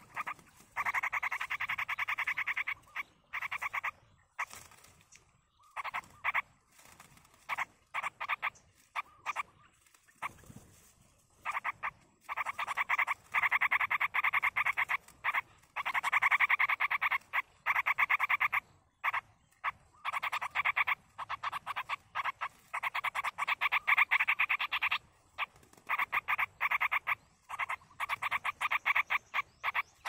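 Animal calls: fast pulsed trills in runs of about one to three seconds, repeating with short gaps.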